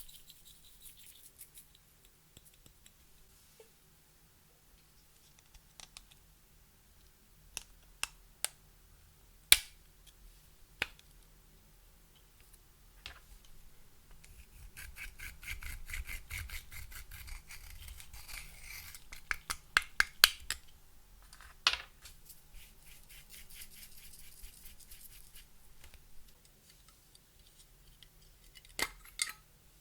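Clear slime being mixed with crushed makeup and glitter: scattered sharp clicks and taps at first, then from about halfway a long stretch of crackly scraping and popping with a quick run of loud clicks.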